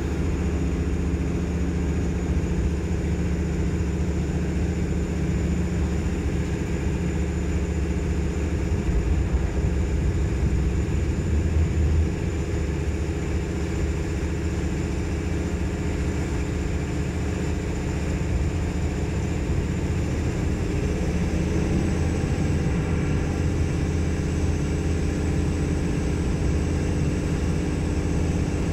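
AKN diesel multiple unit's diesel engine running steadily with a loud low drone and a thin high whine. The whine steps up slightly in pitch near the end.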